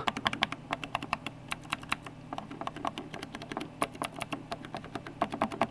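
Mechanical Cherry MX keyswitches being pressed rapidly one after another, a quick, irregular run of sharp key clicks and clacks.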